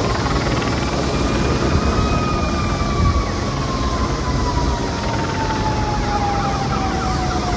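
Emergency vehicle siren in one slow wail: its pitch rises for about two seconds, then falls slowly for the rest. It sounds over a loud, steady rushing noise.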